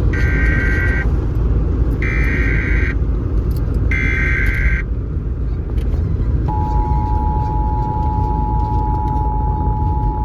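Emergency Alert System signal off an FM radio: three short bursts of SAME header data, each a buzzing warble lasting about a second, one every two seconds. About two seconds after the last burst the steady two-tone EAS attention signal begins and holds. A constant low rumble of reception noise lies underneath.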